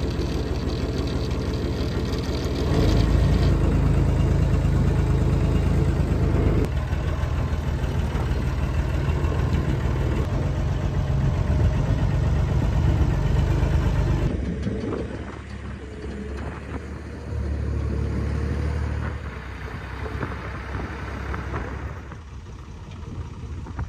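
Old 4-tonne site dumper's diesel engine running as it is driven, freshly started after standing unused for a while. It sounds loud and close at first, then quieter and further off about two-thirds of the way through, swelling briefly once more before the end.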